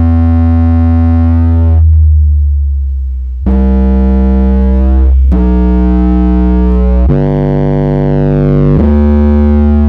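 A Digital Designs (DD Audio) 512c 12-inch subwoofer playing bass-heavy music very loud, with nothing but the sub hooked up. Long, deep synth bass notes are each held for one to a few seconds before stepping to a new pitch. The first note fades about three seconds in, and four more follow.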